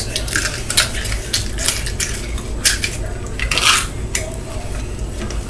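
Nerds candy rattling in its small cardboard box as the box is opened, shaken and tipped up to pour the candy into the mouth: an irregular series of small clicks and rattles.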